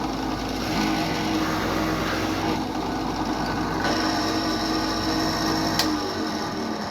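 Small electric drill running steadily, drilling holes in the harp's wooden soundboard for inlay dots. It stops about six seconds in, just after a sharp click.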